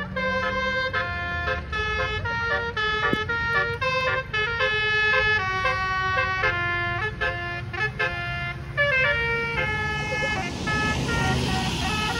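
Bus telolet basuri multi-tone air horn playing a melody, note after note in sustained steps, over the low rumble of the bus engine. A rush of hissing noise rises near the end.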